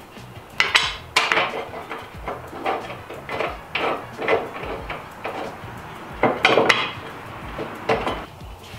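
Steel brackets and bolts being handled and fitted by hand against a car's rear end: irregular metal clinks and clanks about once a second, loudest about six and a half seconds in.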